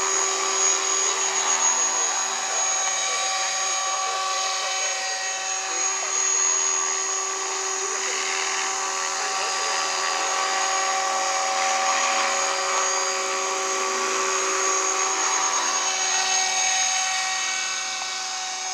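Align T-Rex 500 electric radio-controlled helicopter flying low: a steady high whine from its motor and gears over the whoosh of the rotor blades, swelling and easing a little as it manoeuvres.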